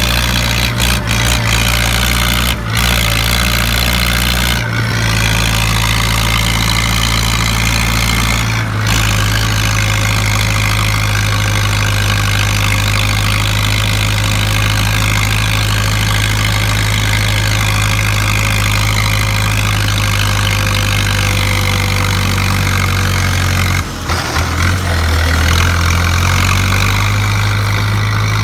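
Farm tractor's diesel engine running steadily as the tractor drives along, with a deep, even drone and a few brief dips in level.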